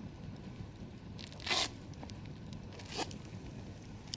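Campfire crackling: scattered small pops and ticks over a low steady background, with a louder crackling burst about a second and a half in and a shorter one near three seconds.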